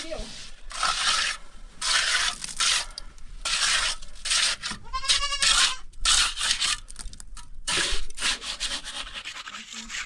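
Steel trowel scraping and spreading wet cement mortar over concrete blocks in repeated rasping strokes of about a second each. A short pitched call sounds once about halfway through.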